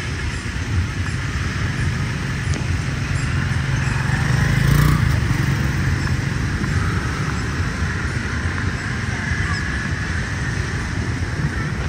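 Street traffic noise on a busy city road: a steady rumble of engines and tyres, with one vehicle passing close and loudest about five seconds in.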